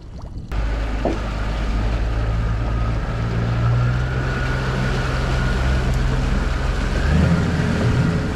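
Boat motor running steadily under way, a loud low hum that comes in suddenly about half a second in, its engine note stepping up slightly after a few seconds and shifting again near the end, over wind and water noise.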